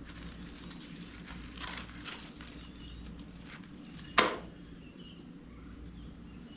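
Light clicks and taps of parts being handled while a table saw is assembled, with one sharp, loud knock about four seconds in.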